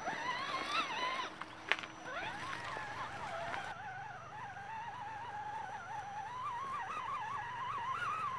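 Electric motor and gear whine of an Axial SCX10 Jeep Rubicon RC crawler climbing under load, its pitch wavering up and down with the throttle. A single sharp click about a second and a half in.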